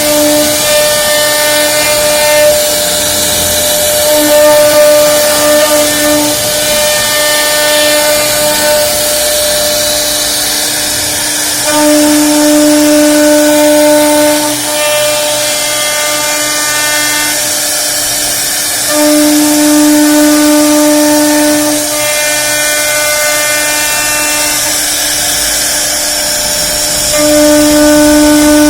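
CNC router spindle running with a steady high whine while the bit cuts a door panel, over a constant hiss of cutting. The whine grows louder for stretches of two to three seconds, about every seven seconds, as the cutting load changes.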